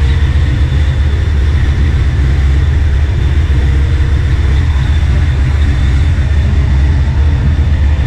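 Chevrolet C10 pickup's engine idling steadily, a deep even rumble with a faint high whine over it, while it runs to warm up and push air out of the freshly filled cooling system.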